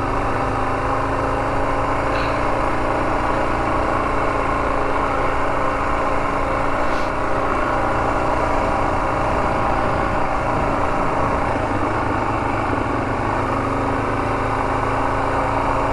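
Suzuki DR-Z400S single-cylinder four-stroke engine running at a steady speed while riding through deep black volcanic sand, under a steady rush of wind and road noise.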